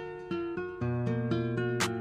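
Background music led by plucked guitar notes, with a sharp percussive hit near the end.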